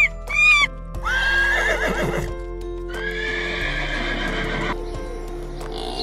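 A horse whinnying twice, each a high wavering call of a second or more, after a short squeaky call at the start, over background music.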